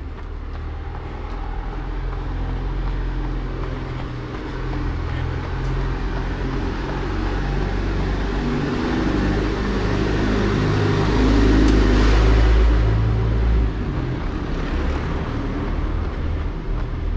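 Motor vehicle engines running close by, a steady low engine sound that builds to its loudest about twelve seconds in, as a vehicle passes, then drops off sharply.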